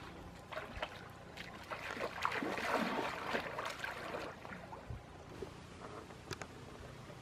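Shallow water splashing and sloshing in irregular spells, busiest about two to four seconds in, with a few sharp ticks later.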